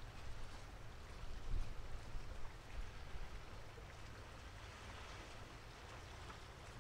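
Rain falling outdoors, an even patter of drops, under an uneven low rumble that swells briefly about one and a half to two and a half seconds in.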